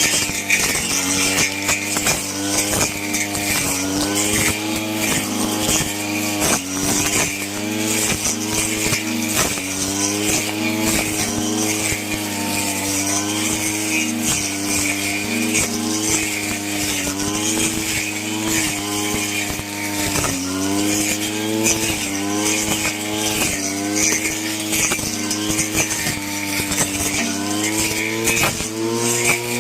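Two-stroke brush cutter running at high speed while cutting grass, its engine pitch dipping and recovering every second or two as the blade takes the load of each swing.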